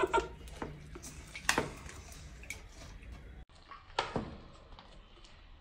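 Mouth sounds of eating chicken wings: a few short smacks and clicks as the meat is pulled off the bones, over faint room tone.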